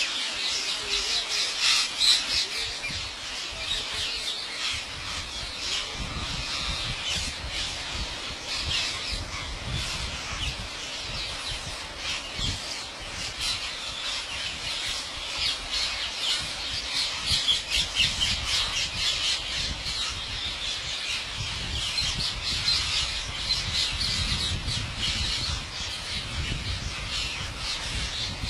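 A flock of parrots squawking, a dense continuous chorus of many short harsh calls.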